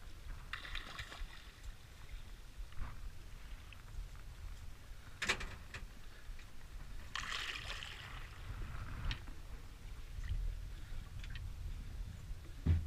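Water sloshing and splashing against the side of a small aluminium boat over a low steady rumble, with a sharp knock about five seconds in and a dull thump near the end.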